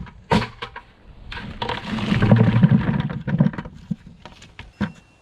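Potatoes being tipped into a bucket: a few knocks, then about two seconds of tumbling, rumbling clatter as they pour in, and a few last knocks near the end.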